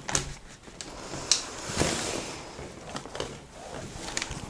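Handling noises of painting: a paintbrush scraping through acrylic paint on a palette, with a few light knocks and clacks as brushes are put down and picked up.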